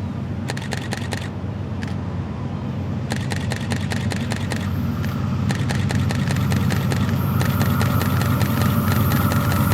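Diesel locomotives of an approaching BNSF freight train, a low engine rumble growing steadily louder, with rapid sharp clicking over it.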